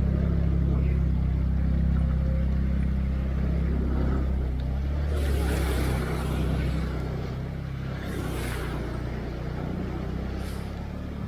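A TVS Ntorq 125 scooter's single-cylinder engine runs at low speed with a steady low hum as the scooter rides through flood water. Its wheels throw up splashing rushes of water, longest about five and eight seconds in, with a shorter one near the end.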